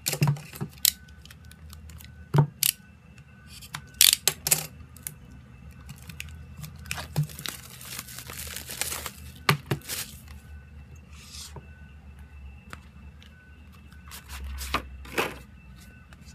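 Album packaging being unwrapped and handled: scattered sharp taps and clicks, with a stretch of tearing, rustling wrap from about eight to ten seconds in.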